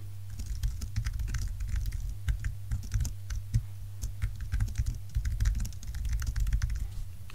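Computer keyboard typing: quick, irregular key clicks over a low steady hum.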